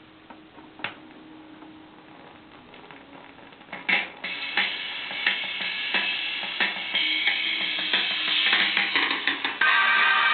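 Vinyl record played on a "Lewek" children's portable turntable: a faint steady hum and a click, then music with drums starts about four seconds in and grows louder near the end.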